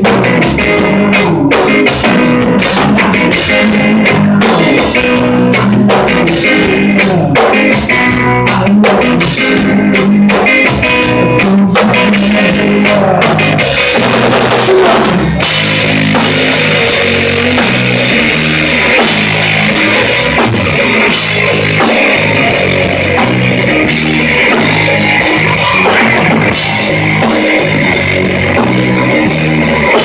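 Live rock band playing loudly: Les Paul-style electric guitar and a drum kit. About halfway through the sound turns denser and brighter.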